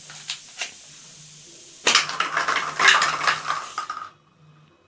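Two light clicks, then a dense rattling clatter of small hard objects lasting about two seconds and cutting off sharply near the end.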